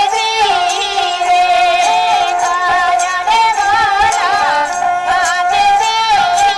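Music: a high melody line that bends and wavers in pitch with quick ornaments, over scattered sharp percussion strokes.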